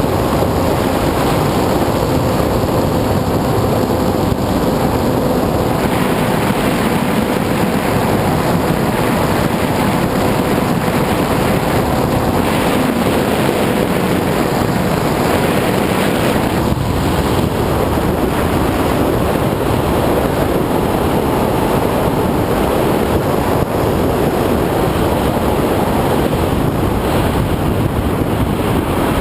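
Onboard sound of an FPV model aircraft in flight: a steady motor-and-propeller drone, its pitch sinking slowly, buried in loud wind rush over the microphone.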